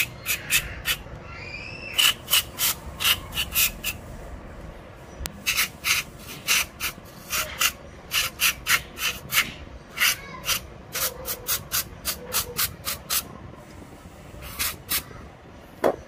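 Aerosol cleaner sprayed in many short hissing spritzes, in quick clusters with brief pauses, into the idle air control valve of a second-generation Honda CR-V throttle body. The valve is being cleaned because it was sticking and causing the idle hunting.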